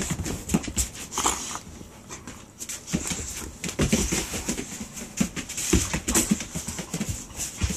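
Two boxer dogs play-fighting on a tile floor: claws clicking and scrabbling on the tiles in quick irregular bursts, with short dog noises mixed in.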